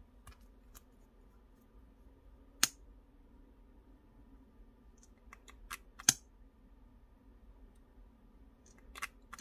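A few sharp clicks from a plastic NYX Butter Gloss lip gloss tube and its applicator wand being handled as the wand is taken out and used. One click comes about two and a half seconds in, a quick cluster comes around six seconds, and two more come near the end, over a faint steady hum.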